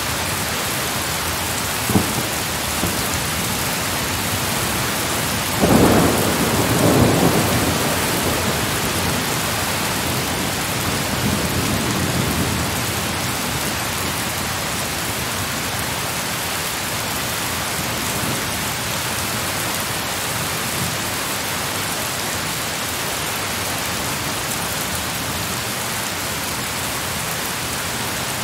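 Heavy rain pouring steadily, with thunder: a sharp crack about two seconds in, then a loud thunderclap a little later that rumbles away over a couple of seconds, and a fainter rumble after that.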